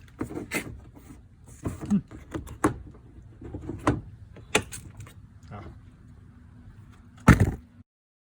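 Plastic clicks and knocks of door-panel rivets and trim being pried and popped loose from a van door, a dozen or so irregular snaps. The loudest comes near the end, and the sound cuts off abruptly just after it.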